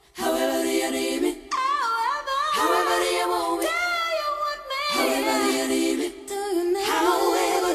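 A cappella singing: layered voices in harmony, the upper line wavering with vibrato, sung in phrases broken by short breaths.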